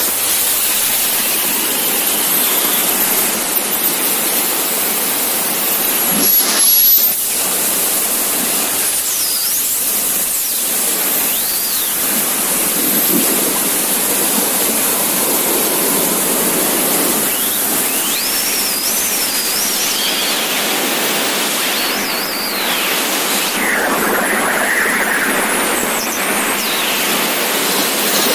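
Airflow of wingsuit freefall: steady, loud wind rushing over the camera, with faint wavering whistles now and then.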